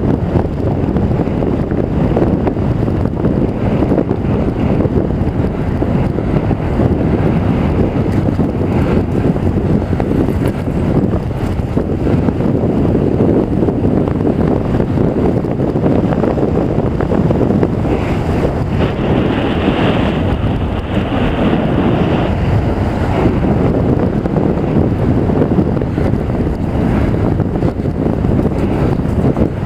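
Wind buffeting a helmet-mounted camera's microphone while riding a mountain bike: a loud, steady rumble throughout.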